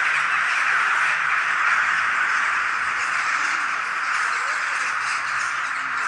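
A large flock of crows calling all at once: a dense, unbroken chorus of overlapping caws.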